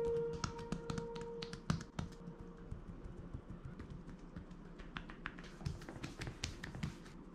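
Percussive massage strokes on a bare back: hands chopping with their edges and tapping with knuckles and fingertips, a rapid, irregular series of light slaps and taps on skin. Soft background music fades out over the first couple of seconds.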